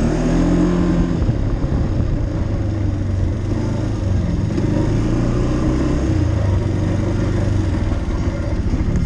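ATV engine running under way along a dirt trail, a steady engine note with small rises and falls in pitch as the throttle changes.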